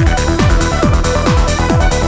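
Electronic dance music in a trance style, with a steady kick drum a little over two beats a second under sustained synth notes.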